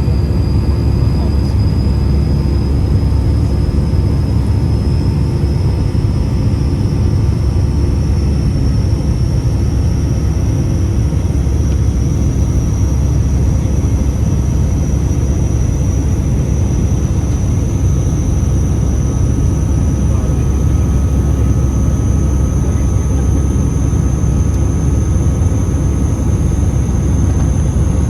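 Airbus A319 cabin during takeoff climb: a steady engine and airflow roar with a thin, high-pitched whistle over it that slowly rises in pitch. The whistle is an unusual one that the uploader had never heard before.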